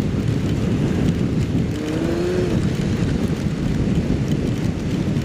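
Kawasaki Z750 inline-four motorcycle running at highway speed, heavy wind and road noise over the engine. About two seconds in, the engine note briefly rises.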